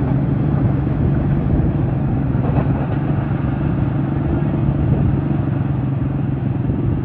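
A vehicle engine idling steadily nearby, an even low-pitched drone that does not change.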